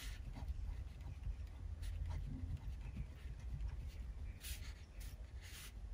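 Ballpoint pen writing on paper: faint, short scratching strokes, the clearest two near the end, over a low steady hum.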